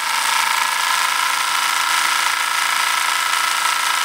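Homemade Voss electrostatic machine running: a motor spins its CD disc with thin wire brushes rubbing on the disc, giving a steady whirr with a high hum over hiss.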